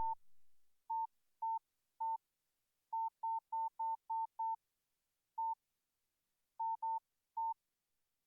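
Nokia 2730 classic playing a one-pitch electronic beep tone: about fourteen short, identical beeps in an uneven rhythm, with a quick run of six in the middle. There is a brief click at the start.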